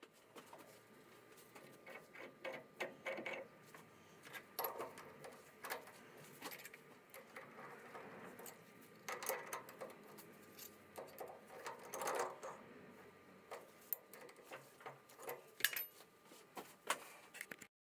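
Metal tools and parts handled by hand at a metal lathe: irregular light clicks, clinks and knocks, coming in quick clusters with short pauses between.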